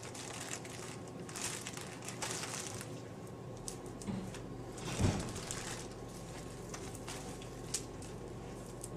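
Wet hands rubbing and massaging damp plaster of Paris bandage into a foot cast, a soft wet rubbing, with a single dull thump about five seconds in.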